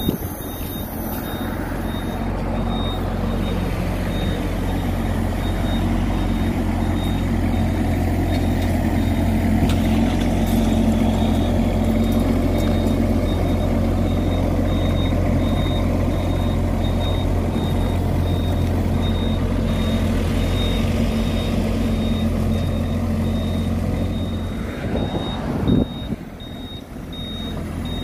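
Kubota 2-ton mini excavator's diesel engine running steadily while the machine travels, with a repeating high beep from a travel alarm throughout. Near the end the engine sound rises briefly, then drops quieter.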